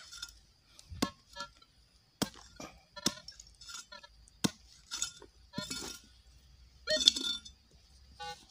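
Small metal hand hoe chopping into dry, stony soil: a series of sharp strikes and clinks, roughly one a second, as the blade hits earth and stones.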